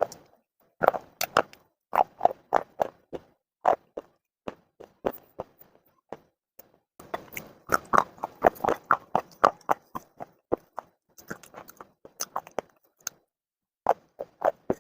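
Baked clay being bitten and chewed close to the microphone: irregular sharp crunches, densest in the middle, with short pauses between bites.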